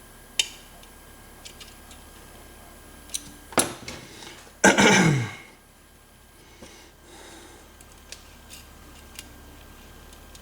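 Scattered faint metallic clicks of lock picks working the pins of a Corbin Russwin lock cylinder. A little before the middle comes one louder half-second sound whose pitch falls steeply.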